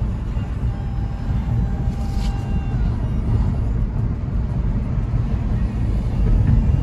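Car cabin noise while driving: a steady low rumble of road and engine.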